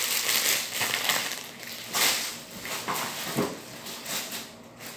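Plastic packaging crinkling as it is handled, loudest at the start and again about two seconds in, then a paper shopping bag rustling more softly as it is rummaged through.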